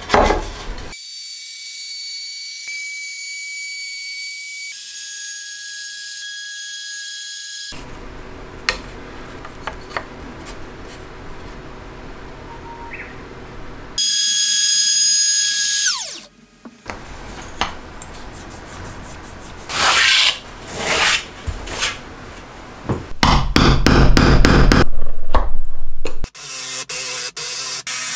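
Power tools working wood in turn. A Makita cordless trim router whines at high speed while routing and winds down with a falling pitch partway through. Near the end a Makita 18 V cordless drill runs loudly as it bores into wood.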